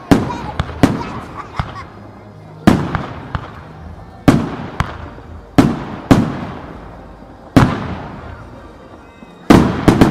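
Aerial fireworks shells bursting: about nine loud booms, irregularly spaced a second or two apart, each trailing off in a long echo, with smaller pops and crackles between them.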